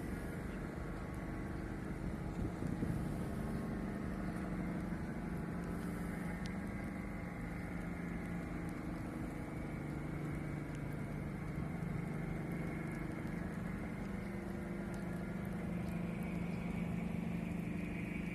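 Boat engine running steadily, a low hum that shifts slightly in pitch over a constant wash of noise.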